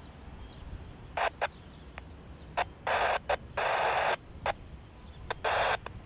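Air traffic control scanner radio crackling with short bursts of static that cut in and out sharply several times, over a low steady rumble from the airfield.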